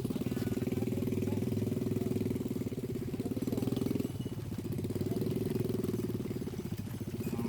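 A small engine running steadily at idle, its rapid firing pulses continuous, with a brief drop in level about four seconds in.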